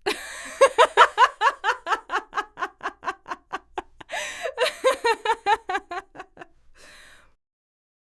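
A woman laughing: a long run of quick, rhythmic ha-ha pulses, about five a second, that slow and fade, ending in a breathy inhale about seven seconds in.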